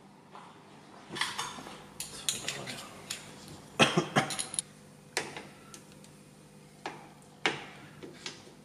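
Small steel tool and fixture parts clinking and clicking against a Subaru EJ25 engine block as they are handled and set in place. A quick run of sharp clinks about a second in, the loudest cluster about four seconds in, then single clicks spaced out toward the end.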